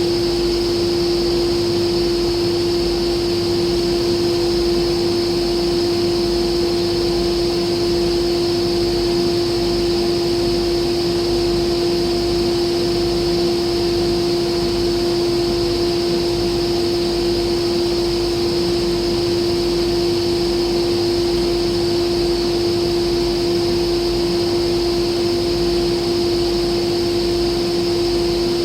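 Steady mechanical hum with one strong unchanging tone over a low rumble, holding at the same pitch and loudness throughout.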